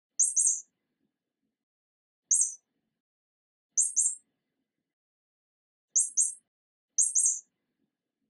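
Mouse squeaks: short, very high-pitched squeaks, mostly in quick doubles, heard five times with silent gaps between.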